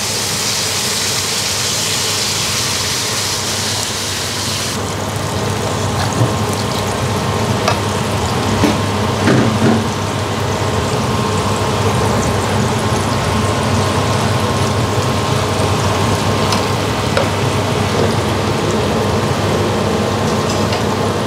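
Hoisin sauce and water sizzling in a hot wok of fried garlic, ginger and spices as it is stirred. The sizzle is a loud hiss for the first few seconds, just after the water goes in, then drops abruptly to a steadier bubbling with scattered clicks of the spatula against the wok.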